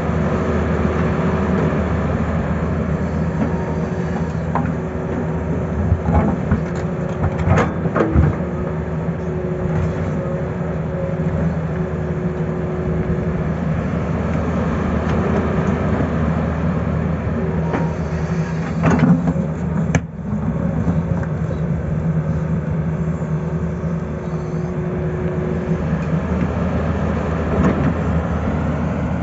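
Tata Hitachi excavator's diesel engine running steadily under digging load, with a constant whine over the drone. A few sharp knocks come as the bucket works through rocky soil, several about a quarter of the way in and again about two-thirds through.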